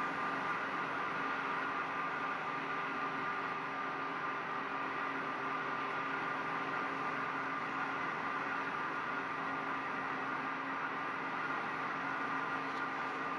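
A steady, unchanging drone of several held tones over a soft hiss, like an ambient background sound bed.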